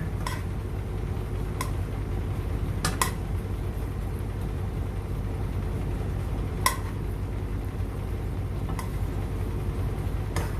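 A steady low hum with a handful of sharp, brief clinks of cookware scattered through it, the first just after the start and the last near the end.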